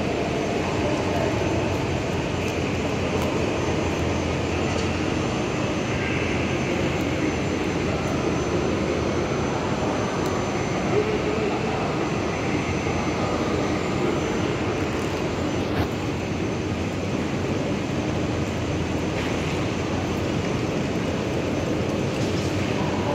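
Steady rumbling ambience of a large train station hall, echoing under the roof, with a continuous low drone and no clear single event.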